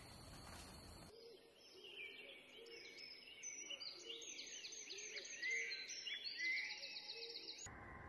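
Several songbirds singing together, with quick repeated trills, chirps and whistled notes and short low notes repeating underneath; the song is busiest in the second half and cuts off suddenly near the end. Before it, for about the first second, there is a faint steady hiss with a thin high whine.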